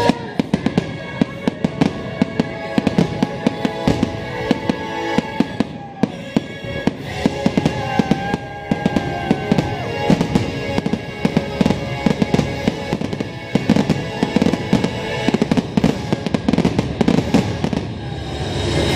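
Fireworks bursting in a rapid, irregular string of sharp bangs, with music playing underneath.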